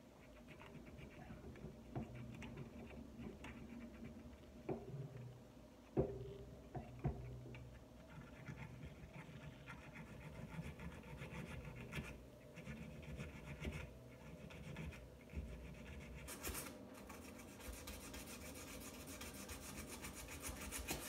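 Faint scratching of a sandpaper strip rubbed by hand around the new cork on a clarinet upper joint's tenon, sanding it down to fit. Two sharper clicks come about six and seven seconds in, and the scratching grows quicker and denser over the last few seconds.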